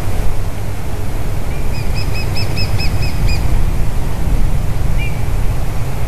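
Grey-headed woodpecker calling: a quick run of about nine clear, fluty whistled notes in under two seconds, with one single note about five seconds in. A steady low wind rumble on the microphone runs underneath and is the loudest sound.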